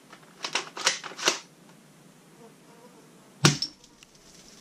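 Bug-A-Salt spring-powered salt gun being cocked with a few sharp clicks of its pump, then fired once about three and a half seconds in: a single sharp snap, followed by a brief rattle of salt striking a bottle-cap target.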